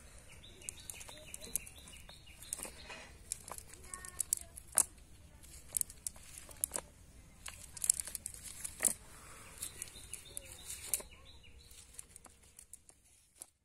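Irregular, sharp rustling and crackling of a cast net with small fish in it being handled over dry leaves and twigs on bare ground.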